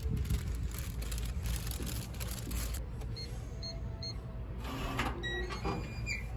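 Steady low rumble of a vehicle in motion, heard from inside. It grows quieter about three seconds in, and a few short high beeps follow.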